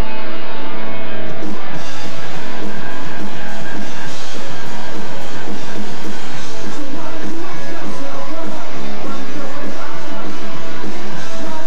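Punk rock band playing live and loud: distorted electric guitars, bass and drums, recorded on a camcorder's built-in microphone.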